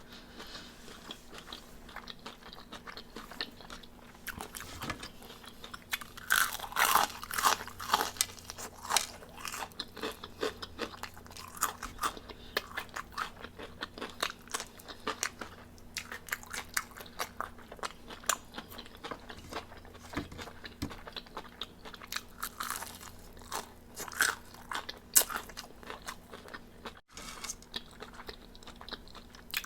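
A person biting and chewing crispy fried chicken wings, with a steady run of short crunches. The loudest crunching comes about six to eight seconds in and again around twenty-two to twenty-five seconds.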